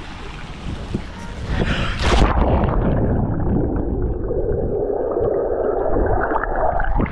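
A splash about two seconds in as the camera plunges into a swimming pool, then muffled underwater sound of rushing bubbles and moving water. The sound brightens again near the end as the camera breaks the surface.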